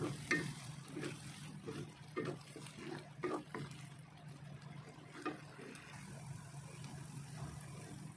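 A wooden spatula stirs and scrapes eggplant and spice paste around a wok, in irregular strokes that are thickest in the first half and sparse after that. A steady low hum runs underneath.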